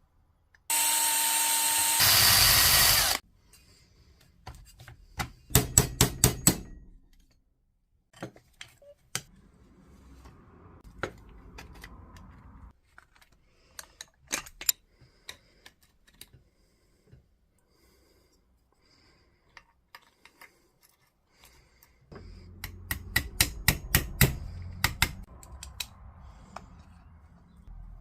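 A power tool runs briefly for about two and a half seconds near the start. Then come scattered clicks, taps and knocks of plastic and metal parts as a cordless jigsaw is taken apart to replace its broken blade guide, with a busier run of knocks and low rumbling near the end.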